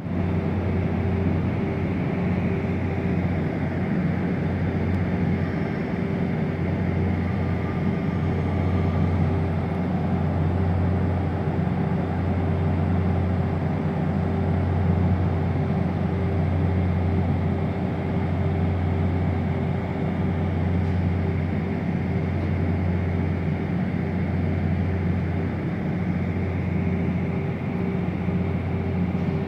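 A stopped passenger train idling at the platform, a steady low hum with a droning tone that holds unchanged throughout.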